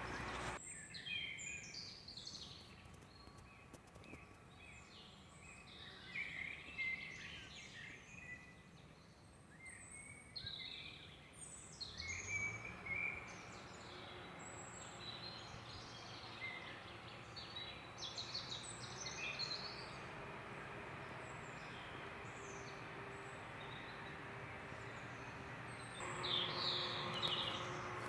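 Small birds chirping, many short high chirps and twitters coming one after another, over steady background noise.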